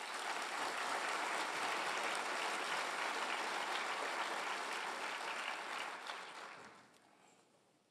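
Audience applauding in a large hall, a steady dense clapping that starts right after the talk ends and dies away over the last couple of seconds.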